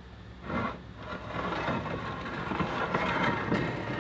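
A ripped Versetta Stone faux-stone panel scraping and rubbing as it is slid and pressed into place in the top row, starting about half a second in, over a steady low hum.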